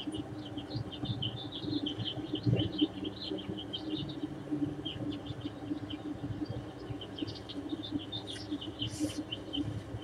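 Small birds chirping in quick, dense bursts over a steady low hum.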